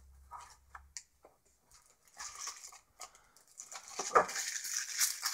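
Clear plastic wrapping crinkling as a wrapped wristwatch is handled and lifted out of its tin, with a few small clicks and taps before it; the crinkling grows louder in the second half.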